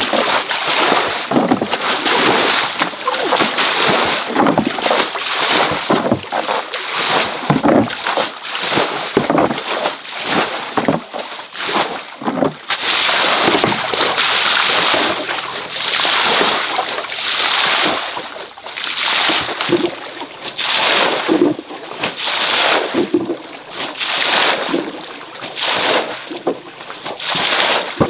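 Water splashing and sloshing in irregular surges, with many short splashes.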